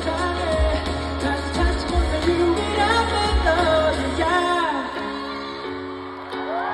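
Live pop ballad over a festival stage PA: a male lead vocal over a band with bass and drums. About four seconds in the bass and drums drop out, leaving held keyboard chords that dip and then swell again near the end.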